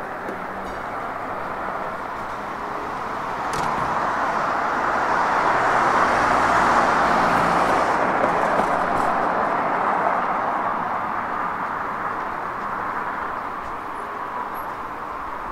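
A car driving past on the street, its tyre and engine noise swelling to a peak about six or seven seconds in, then slowly fading away.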